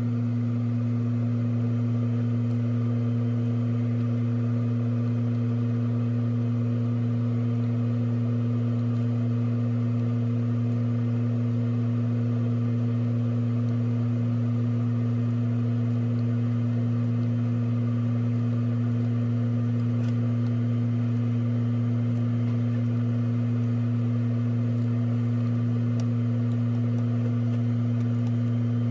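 Steady low electrical hum: one strong low tone with fainter higher overtones, unchanging throughout.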